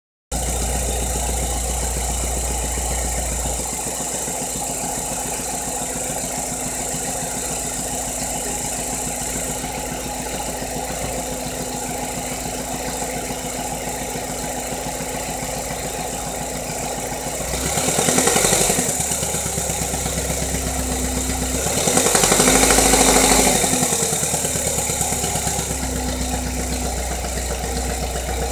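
GM 2.2 L Ecotec inline-four engine idling with a steady, rhythmic knock, revved briefly twice in the second half. The knock persists despite new cam phasers, timing chain guides, tensioner and cam actuator solenoid.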